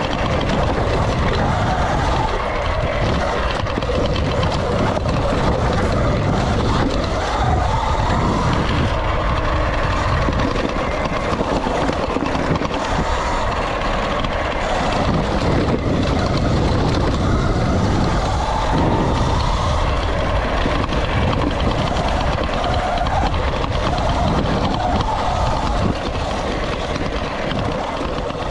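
Sur-Ron electric dirt bike riding a rough gravel trail: the electric motor and drivetrain whine rises and falls with speed over a steady heavy rumble of the bike and wind on the camera.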